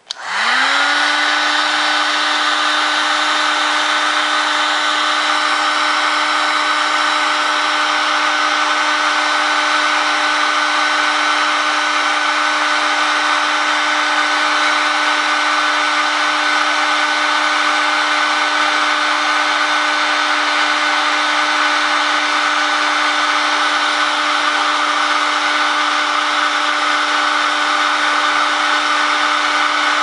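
Electric heat gun switched on, its fan motor spinning up with a rising whine in the first half second, then running steadily with one constant tone over a rush of blowing air.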